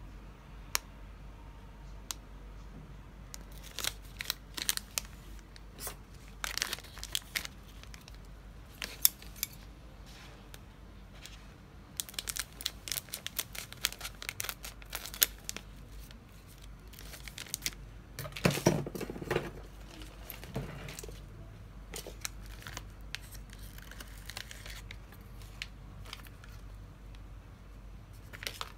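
A foil-lined plastic snack bag crinkles and crackles in the hands and is snipped open with scissors. A louder, fuller rustle comes about two-thirds of the way through, followed by a few small crackles.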